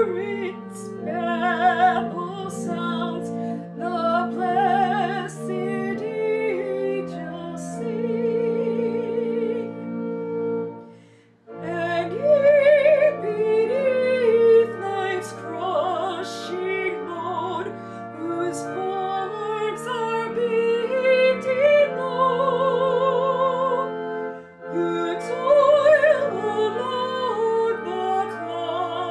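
A woman singing solo with vibrato over sustained instrumental chords. The music breaks off briefly about eleven seconds in, then resumes.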